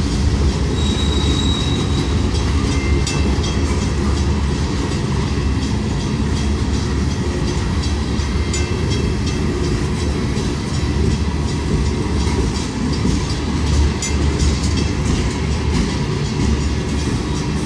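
CSX freight train of refrigerated boxcars rolling past at a grade crossing: a steady rumble with the clickety-clack of steel wheels over the rail joints.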